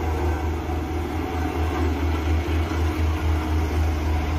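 Bomag single-drum road roller's diesel engine running with a steady low hum as the roller compacts a gravel road.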